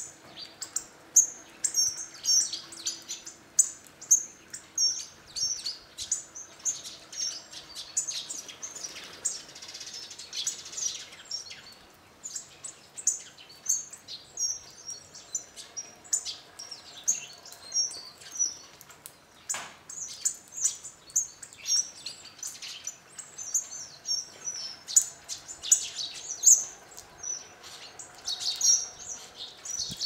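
Hawfinches and tree sparrows calling as they feed at a bird feeder: a steady stream of short, high-pitched chirps and sharp ticking calls, overlapping and irregular.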